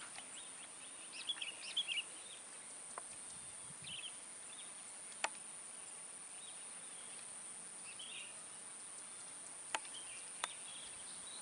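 Quiet outdoor swamp ambience: scattered short bird chirps, a steady high-pitched hum, and three sharp clicks in the second half.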